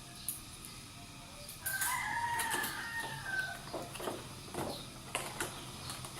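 A rooster crows once, a pitched call of about two seconds that falls at its end, among scattered light clicks and knocks.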